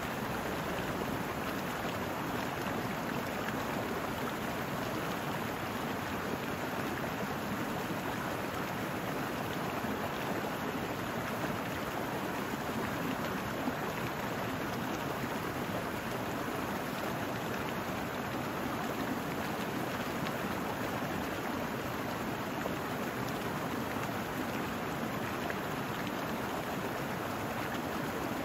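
A small brook flowing over rocks, a steady rushing and burbling of water.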